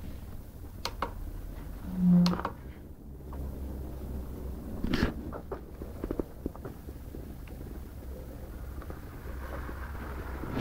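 Scattered clicks and light knocks of handling, with a short low hum about two seconds in, over a faint steady background hum.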